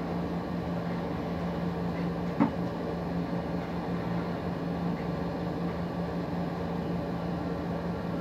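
Steady low mechanical hum over a constant background rumble, with a single short knock about two and a half seconds in.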